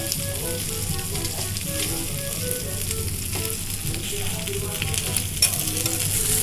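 Pieces of kawai fish (climbing perch) sizzling steadily as they fry in hot oil in a karahi, with a couple of sharp clicks against the pan.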